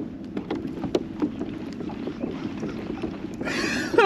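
Steady low hum with scattered small clicks and taps, and a gust of wind on the microphone about three and a half seconds in that is the loudest sound.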